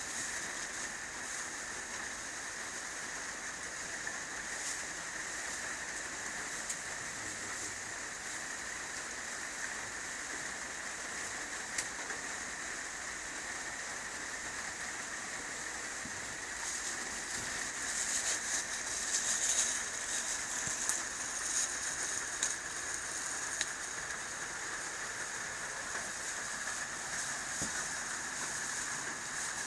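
Steady rain falling, a continuous hiss that grows heavier and more spattering for several seconds past the middle.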